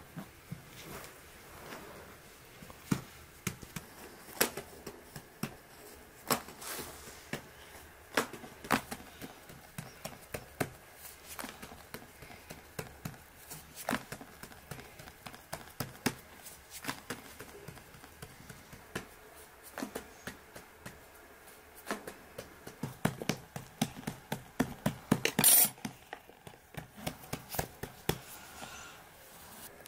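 Scattered light taps and clicks from hands and a metal fork working stuffed dough on a floured wooden board, pressing, patting and crimping the edges. A quicker run of taps comes about three-quarters of the way through, holding the sharpest clicks.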